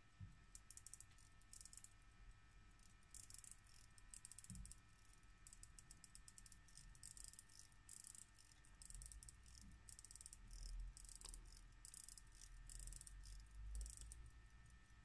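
Faint bursts of rapid, fine clicking from a pocket-watch movement being wound: the click ratchets over the ratchet wheel as the barrel arbor and its Maltese-cross stopwork turn. There are a few dull handling bumps.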